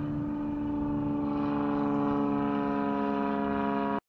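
A steady engine drone, even and unchanging in pitch, growing slightly louder, then cut off abruptly near the end.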